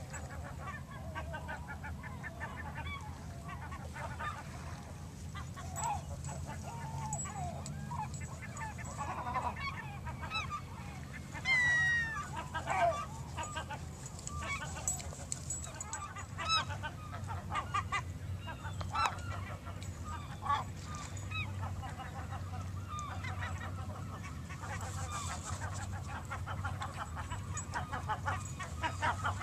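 Many birds calling throughout in short, harsh, honk-like calls, with one louder call falling in pitch about twelve seconds in, over a low steady rumble.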